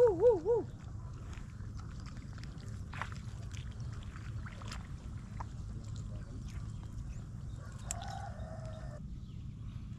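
A pitched warbling call, wavering up and down several times a second, ends about half a second in; then steady low outdoor rumble with scattered faint clicks, and a faint short call near the end.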